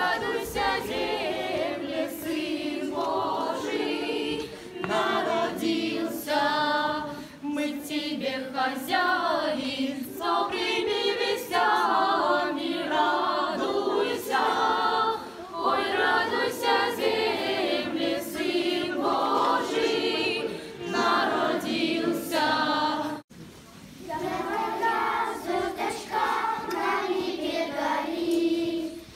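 Children's choir singing Orthodox Christmas chants, the sung line continuing throughout, with a brief break about four-fifths of the way through.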